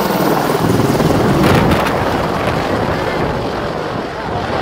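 AH-64 Apache attack helicopter passing low, its rotor blades beating rapidly, loudest about a second and a half in and then fading as it flies away.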